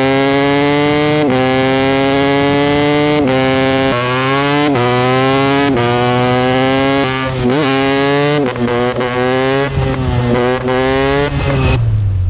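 Single-cylinder two-stroke engine of a 2020 Husqvarna 250 TEi enduro motorcycle running hard at high revs, with a brief dip in pitch every second or so. In the second half the throttle goes choppier, with quick blips, and the revs fall near the end.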